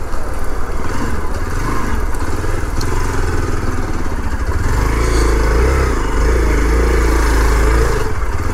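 Motorcycle engine running at low speed, with a deeper, louder stretch from about five to eight seconds in.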